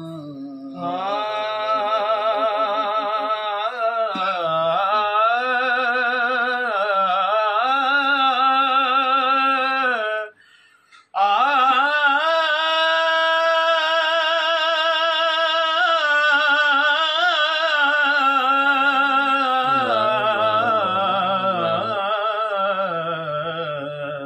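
A singer draws out long sung notes with a fast, wavering vibrato in a Punjabi Sufi kalam, in two long phrases with a short break about ten seconds in.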